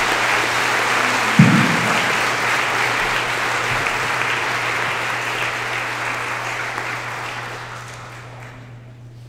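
Audience applauding, fading out near the end, with a single loud low thump about a second and a half in.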